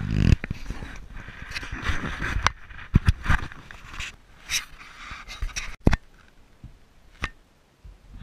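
Handling noise on a small action camera: fingers rubbing, scraping and tapping on the camera body and microphone, an irregular run of scrapes and sharp knocks, quieter for a couple of seconds near the end.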